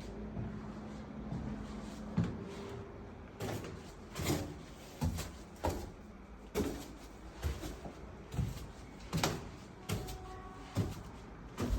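A series of short knocks and thumps, about one every half second to a second, over a low steady hum.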